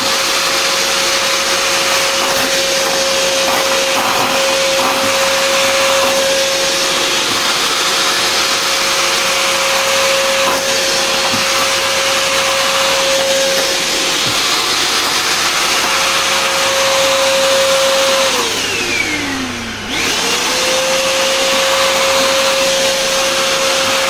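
Disnie 1000-watt vacuum cleaner running with a steady motor whine over the rush of air, sucking up dirt through its floor nozzle. About eighteen seconds in it is switched off and the whine falls as the motor winds down; a couple of seconds later it is switched on again and spins back up to speed.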